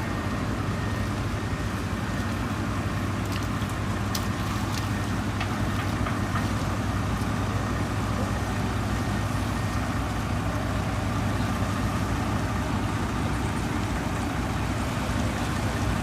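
Heavy truck's diesel engine running steadily with a low, even drone, with a few faint clicks between about three and six seconds in.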